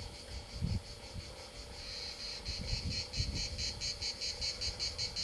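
Cicadas shrilling in a rapid rhythmic pulse, about five pulses a second, growing louder about two seconds in. Irregular low thumps and rumble on the microphone underneath.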